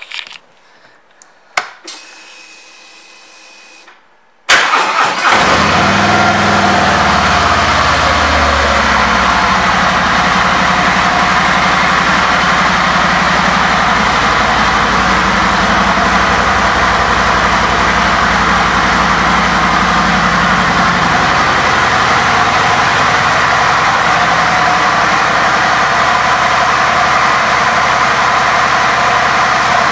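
2019 Harley-Davidson Ultra's 114 cubic-inch V-twin: a few clicks and a faint hum with the ignition on, then about four and a half seconds in the starter cranks briefly and the engine fires and idles steadily. The idle is a little higher for the first few seconds and then settles.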